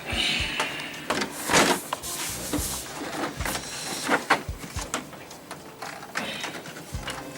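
Irregular knocks, clicks and scraping from handling a flat-panel LED TV set on a workbench.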